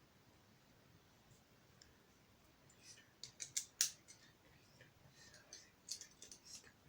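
Plastic Lego pieces clicking together as they are handled and pressed into place, with a quick run of sharp clicks about three seconds in and another short run around six seconds.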